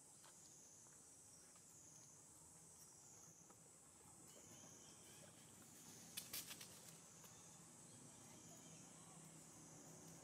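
Faint insect chorus, a steady high-pitched drone that swells and fades slowly over and over. About six seconds in there is a short run of sharp clicks.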